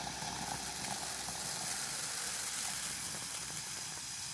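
Steady hiss of nitrogen gas streaming from a long-needle blowgun at about 40 PSI into the top of a food bucket under its gasket lid, displacing the oxygen in it.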